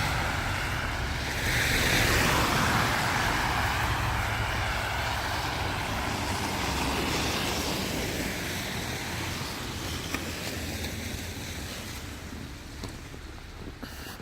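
A road vehicle passing on a snowy street, its tyre and engine noise swelling about two seconds in and then slowly fading away.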